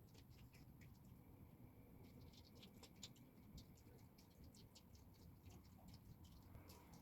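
Faint, irregular clicks and crunches of a red fox chewing chicken, barely above the quiet night background.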